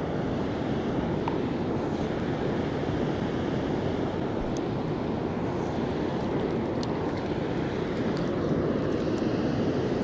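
River water rushing steadily over a shallow, rocky stretch of current.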